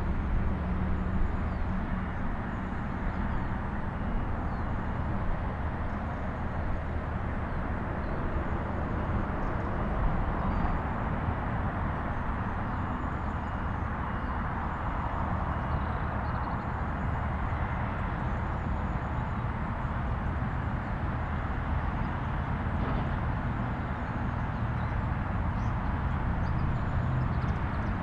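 Steady outdoor rumble and hiss with a low hum underneath, unchanging throughout, with faint short high chirps or ticks scattered across it.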